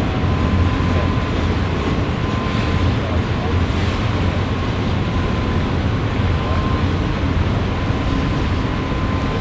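Double-stack intermodal freight cars rolling past: a steady rumble of steel wheels on rail with a faint steady high whine.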